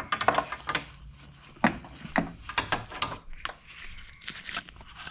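Hand ratchet and socket working a hard-to-reach headlight mounting bolt loose: irregular clicks and scrapes, with the hand and tool rubbing against plastic panels.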